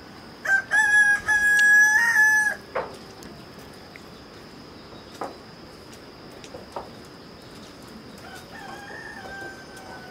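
A rooster crowing loudly about half a second in, one long cock-a-doodle-doo in stepped segments, and a fainter crow near the end.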